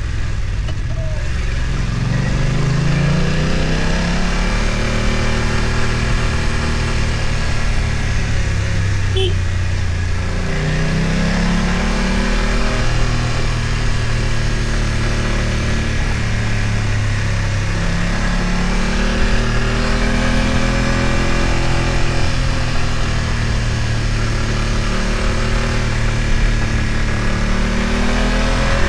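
BMW F900 XR's parallel-twin engine pulling under throttle, the revs rising, holding and dropping back several times.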